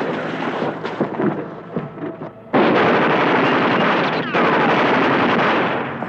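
Battle sound effects of gunfire: scattered shots, then about two and a half seconds in a sudden, loud, continuous barrage, with a falling whistle about four seconds in.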